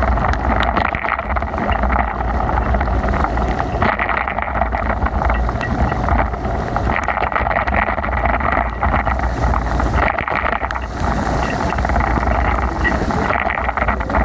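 Steady rush of wind on the microphone over the hiss of bicycle tyres on a rain-soaked road, during a ride in heavy rain.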